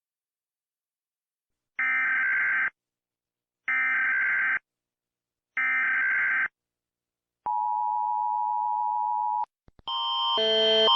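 Emergency Alert System broadcast tones. First come three one-second squawks of digital header data, about two seconds apart, then a steady two-note attention tone lasting about two seconds. After two clicks, a louder alarm of several stacked tones begins near the end, pulsing in quick alternation and growing louder.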